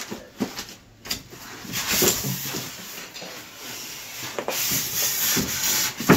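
Packaging noise from a gas cooktop being handled in its box: styrofoam blocks and cardboard rubbing and rustling, with several knocks. The loudest knock comes at the very end.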